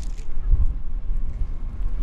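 Wind buffeting the microphone: an uneven, gusty low rumble with a few faint ticks.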